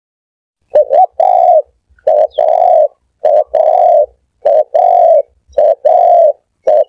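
Spotted dove cooing: about six repeated phrases, each one or two short notes followed by a longer held coo, with short pauses between them.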